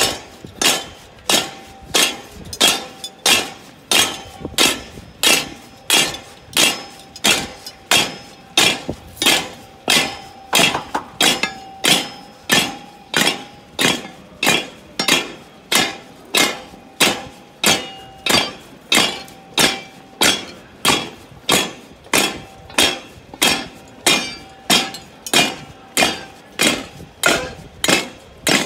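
Rhythmic metallic clanking, steady and even, one sharp strike about every 0.7 s, each with a short ring, keeping a slow marching pace.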